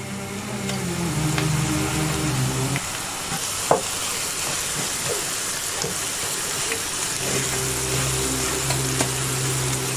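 Diced carrots, peas and corn sizzling in a granite-coated pan while a wooden spoon stirs them, with a single knock of the spoon against the pan a little under four seconds in. A steady low hum fades out near the start and comes back about seven seconds in.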